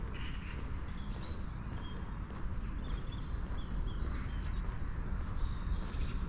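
Several songbirds chirping and twittering in short, high calls scattered throughout, over a steady low rumble.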